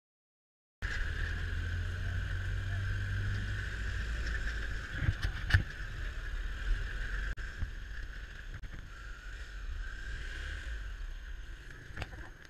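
Kawasaki D-Tracker 250's single-cylinder engine running at low speed as the motorbike rolls slowly, with wind and road noise on the helmet camera. The sound cuts in just under a second in, and there are brief sharp clicks about five seconds in.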